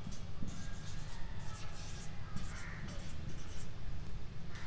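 A marker writing on a whiteboard: a run of short, scratchy strokes as letters are written.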